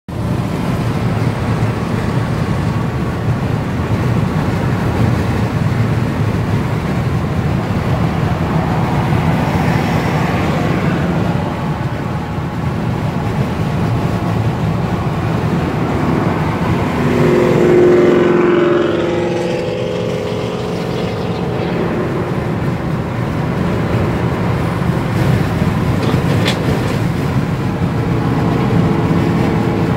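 Car driving at highway speed heard from inside the cabin: a steady engine and tyre rumble, with an engine revving up and back down for a few seconds past the middle.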